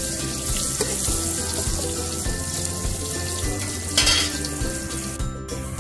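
Sliced onions and turmeric sizzling in hot oil in an aluminium pot, stirred with a steel spoon, with a brief louder burst of sizzle about four seconds in.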